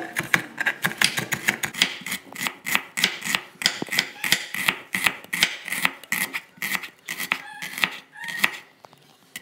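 Kitchen knife chopping and slicing an onion on a wooden cutting board: a fast run of sharp knocks of the blade striking the board, several a second, which stops shortly before the end.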